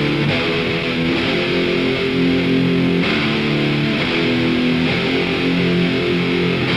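Live heavy metal band playing, led by distorted electric guitars holding chords that change every second or so.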